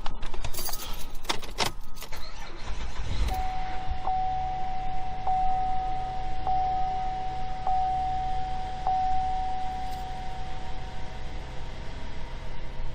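2012 Chevy Traverse's 3.6-litre V6 started about three seconds in after a few clicks, then idling steadily after a fresh set of ignition coil packs and spark plugs, with no misfire felt. A steady electronic warning tone with a small tick about every second sounds over the idle for several seconds.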